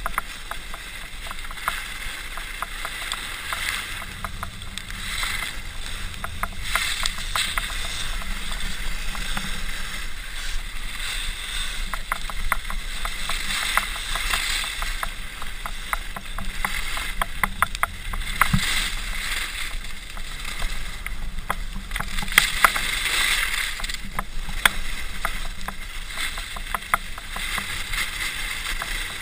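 Skis sliding and scraping over snow on a downhill run: a continuous rasping hiss that swells and fades in waves, with scattered sharp clicks.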